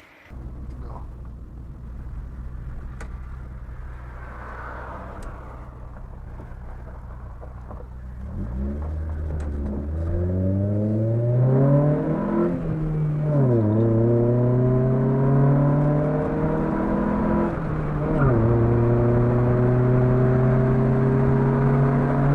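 Chevrolet Vectra 2.2 8-valve four-cylinder engine with a sport exhaust, running steadily at first, then accelerating hard. Its pitch climbs, drops at a gear change about two-thirds of the way in, climbs again, and drops at a second shift near the end before holding steady.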